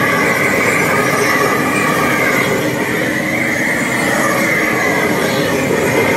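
Gas roofing torch burning steadily, a loud hiss with a wavering whistle, as it melts the underside of a torch-on bitumen membrane.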